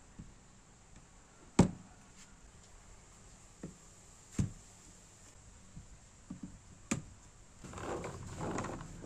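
Wooden marble-run track pieces being set down and knocked into place on stacked plastic building blocks: a few sharp wooden knocks, the loudest about a second and a half in, with two more later. Near the end, a rattling sound.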